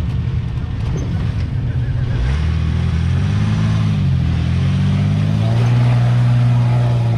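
Ford Bronco II's engine revving under load as it climbs a rock ledge: the revs rise about two seconds in, dip briefly, then climb again and hold high near the end.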